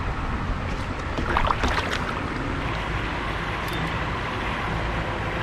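Steady water-and-wind noise around an open canoe on a river, with a few short knocks about one and a half seconds in.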